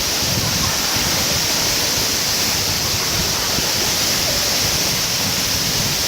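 Waterfall: water falling in a loud, steady, unbroken rush.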